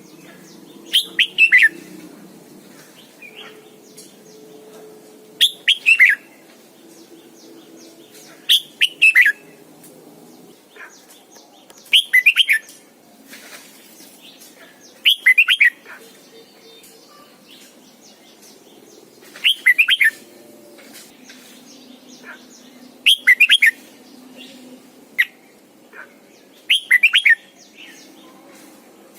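Red-whiskered bulbul singing: short, loud phrases of three or four quick notes that fall in pitch, repeated about every three to four seconds.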